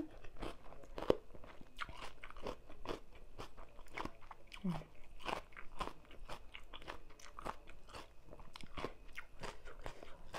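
Close-miked chewing of a mouthful of crisp salad: irregular wet crunches and mouth clicks, with one short hummed "mm" about halfway through.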